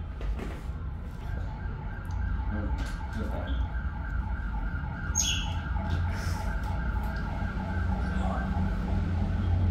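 Steady low rumble of street traffic with a faint, steady high tone over it, and a brief high squeak about five seconds in.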